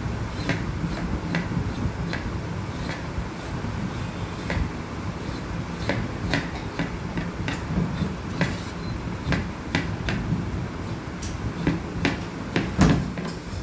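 Kitchen knife scraping the skin off vegetables: short scrapes about one or two a second, with one louder stroke near the end, over a steady low hum.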